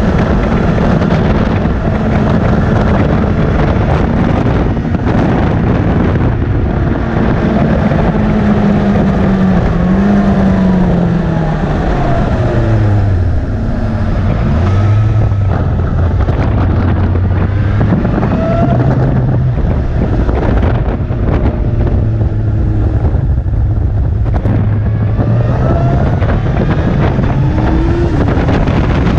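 Sport motorcycle engine on track, with wind buffeting the microphone. The engine note drops as the bike slows from about 65 to 23 mph for a tight hairpin around midway, runs low through the bend, then rises again as it accelerates out near the end.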